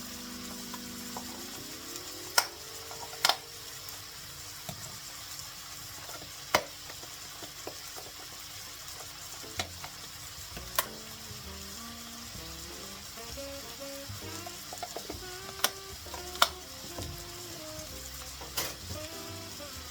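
Food sizzling steadily in a frying pan while it is stirred, with a utensil knocking sharply against the pan about eight times.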